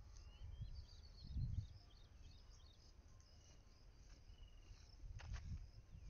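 Faint open-air ambience: small birds twittering in short chirps through the first two seconds or so, and low wind rumble on the microphone swelling twice, with a couple of soft clicks near the end.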